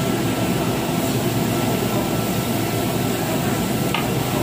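Steady rushing roar of air drawn through a Korean barbecue table's steel grill exhaust hood, with a faint steady whistle over it and a light tap near the end.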